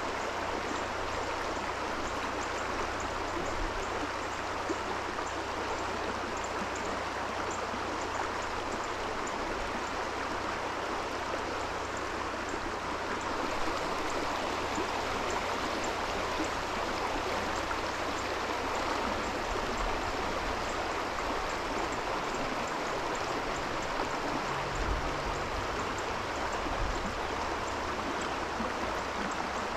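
Trout stream water flowing, a steady rushing that does not change.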